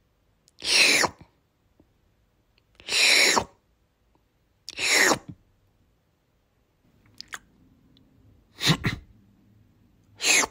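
A short, breathy vocal sound effect that falls in pitch, repeated about every two seconds. It is laid over the fish eating rather than made by them. From about two thirds of the way in, a faint low hum and a few clicks sit under the last bursts, and one burst is lower in pitch.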